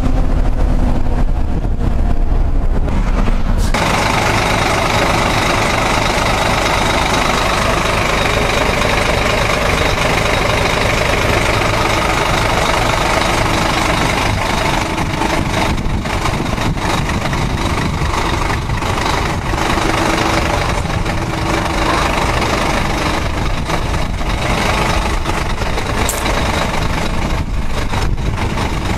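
Ford Ranger pickup driving, with engine and road noise heard from inside the cab. About four seconds in, a broad, steady hiss of tyre and wind noise comes up over the engine rumble.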